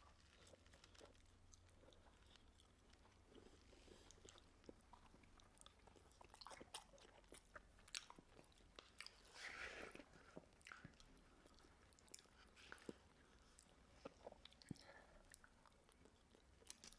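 Faint chewing and wet mouth clicks of a person eating, with a slightly louder crunch or rustle about nine and a half seconds in.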